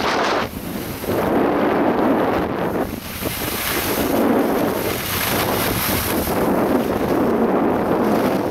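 Loud wind buffeting the microphone of a Sony FDR-X1000V action camera on a downhill ski run: an unpitched rushing noise that surges and briefly drops away every second or so.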